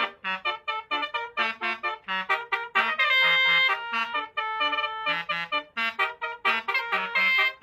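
Basuri-style 'telolet' bus horn playing a fast tune of short, trumpet-like notes, with a couple of longer held notes about three seconds in and again near the end.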